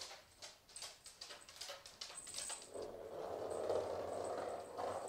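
Kitten batting a small plastic toy ball across a laminate floor: a quick run of light clicks and taps, then from about halfway in the ball rolling on the hard floor with more taps, and a thin high ring coming and going.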